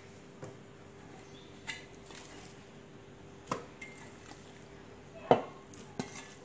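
Raw mutton chunks being dropped into a Thermomix's stainless steel mixing bowl, giving a few scattered knocks and clinks against the metal. The loudest knock comes about five seconds in.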